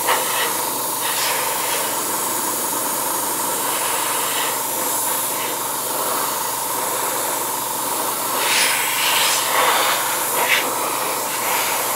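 Gravity-feed airbrush spraying a light-green highlight coat onto a model: a steady hiss of compressed air with a faint steady tone underneath, swelling briefly a few times in its last few seconds.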